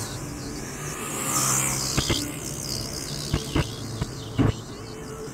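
Road noise heard from inside a moving car at highway speed: a steady hum and tyre hiss that swell briefly about a second in, with a few short knocks later on.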